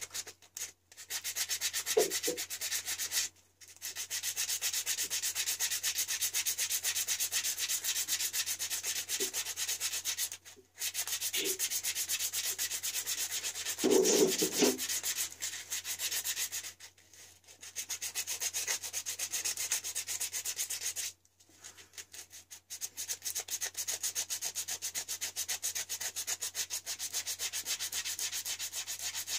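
Quick back-and-forth hand scrubbing or sanding on a small engine part being cleaned, in long runs of rapid scratchy strokes with a few short pauses.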